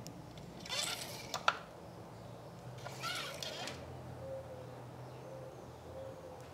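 Faint handling noises, light rustles and a click, as the engine oil dipstick is pulled and checked, over a low steady hum.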